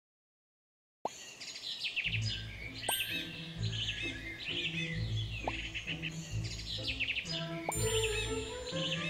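Silence, then about a second in, birds chirping in quick high trills begin. From about two seconds in they are joined by a background music track with a steady low bass pattern and a few short rising blips.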